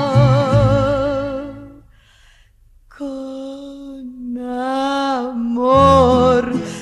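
Music: a song ends on a long held note with vibrato that fades out about two seconds in, and after a second's pause the next song's intro begins with a long held note, the bass coming in near the end.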